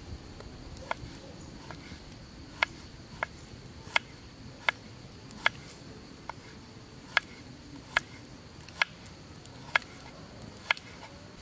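Kitchen knife chopping a shallot on a wooden cutting board: a dozen or so sharp knocks at a slow, fairly even pace, about one a second.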